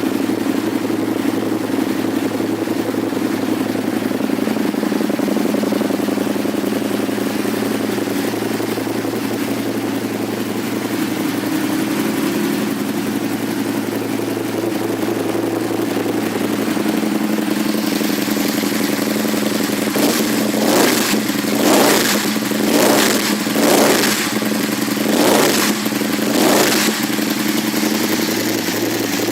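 2008 Aprilia Tuono R 1000's V-twin engine idling through an aftermarket carbon-fibre slip-on exhaust, then blipped up six times in quick succession near the end before settling back to idle.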